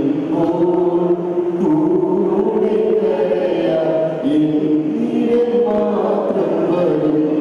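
A small group of women singing a slow song together into handheld microphones, with long held notes.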